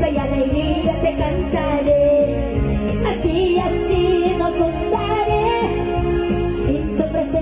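Live gospel worship band music with a steady beat and a melody line on top.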